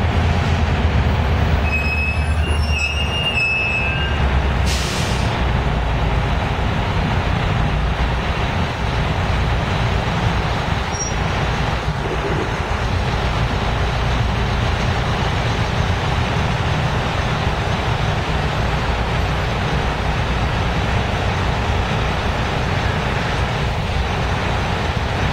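Freight train of tank cars and covered hoppers rolling past over a grade crossing: a steady rumble and clatter of wheels on rail, with a brief high squeal about two to four seconds in.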